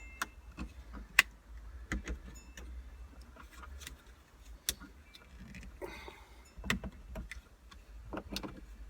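Sharp plastic clicks and taps from the overhead console's interior light and trim being handled and clipped back into place, with the loudest snap about a second in.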